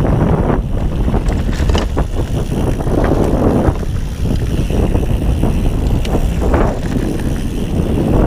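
Wind rushing over the microphone and the rumble of a Ghost Riot UC 10 mountain bike's tyres rolling fast over a dirt woodland trail, surging in waves, with occasional sharp clicks and rattles from the bike.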